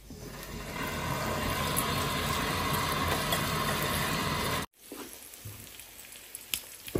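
Kitchen tap running into a glass bowl of asparagus and broccoli in a stainless steel sink while the vegetables are rinsed by hand. The water builds up over the first second and cuts off suddenly about two-thirds of the way through, giving way to a quieter sizzle of steaks frying in a pan.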